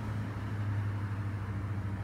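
Steady low mechanical hum with a faint hiss behind it.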